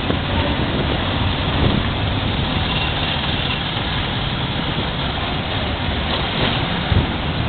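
Steady engine and road noise heard from inside a moving jeepney, with a short thump about seven seconds in.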